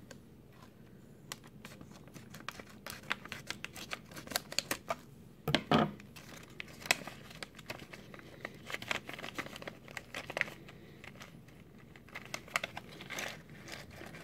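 Plastic foil blind-bag wrapper of a mystery pack being crinkled and torn open by hand, with irregular crackles and rustles.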